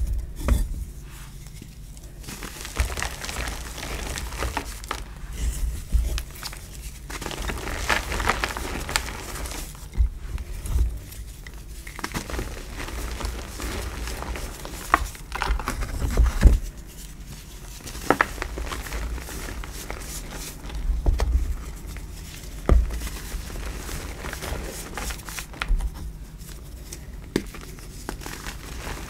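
Hands crushing and crumbling soft black reformed gym chalk blocks into powder: irregular crunches and crackles with the gritty rustle of chalk dust between the fingers.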